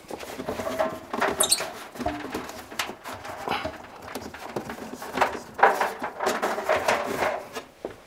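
A rubber drive belt being pulled around a tumble dryer drum from behind the machine: irregular rubbing and handling noise with brief squeaks, including one short high squeak about one and a half seconds in.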